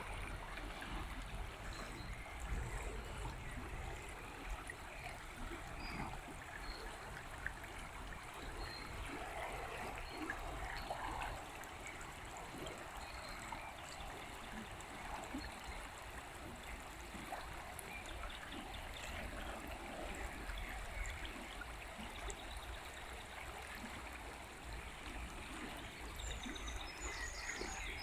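River water flowing steadily, with a few faint high bird chirps near the end.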